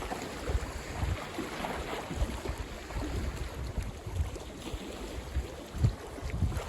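Wind-driven waves lapping and splashing against the lakeshore, with strong wind buffeting the microphone in irregular low rumbling gusts, the strongest a little before the end.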